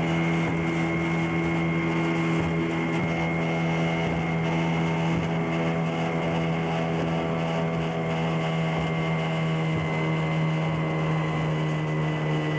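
Motorboat engine running at a steady speed while under way, with rushing wind and water noise.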